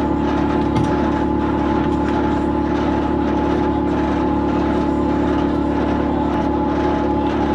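Tractor engine running at steady revs with a steady whine, with no change in speed or load.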